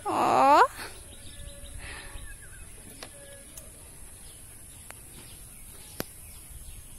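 A loud, short cry that falls steeply in pitch in the first half-second, then faint bird chirps over a quiet outdoor background, with a single sharp click about six seconds in.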